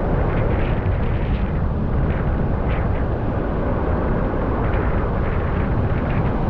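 Ocean surf breaking and washing up the beach, with a heavy, steady wind rumble on the microphone.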